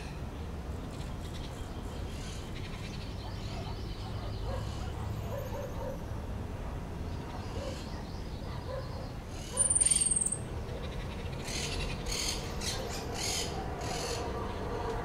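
Outdoor bird calls over steady low background noise. About ten seconds in comes one loud, thin, very high whistle sliding down in pitch, followed by a quick run of short, sharp, high chips.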